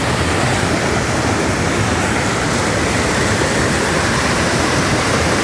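Creek water rushing steadily, a loud, even rush with no breaks.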